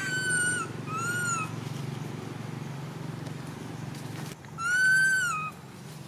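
Baby macaque crying: three high, arching whistled cries, two short ones in quick succession and a longer, louder one a few seconds later.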